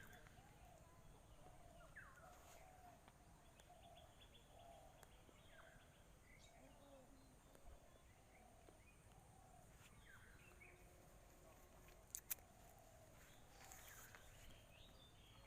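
Near silence with faint birds chirping over and over in the background, and two sharp clicks about twelve seconds in.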